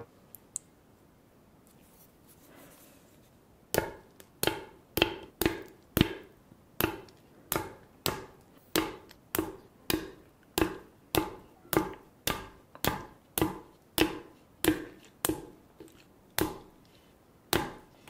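Rubber balloon skins of Kyoho grape jelly balls snapping off one after another as each is pricked with a toothpick: about two dozen sharp pops, roughly two a second, starting about four seconds in.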